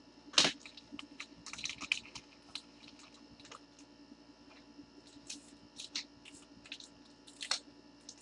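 Faint, scattered clicks and short crinkly crackles from hands handling small objects. The loudest is a sharp crackle about half a second in, with a cluster near two seconds, all over a low steady mains hum.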